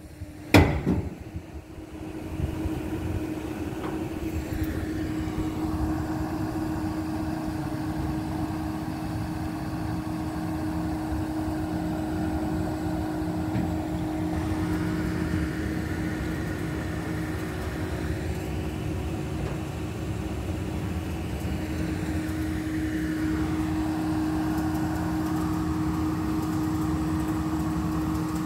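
A vehicle engine running steadily with an even, constant hum, after a couple of sharp knocks right at the start.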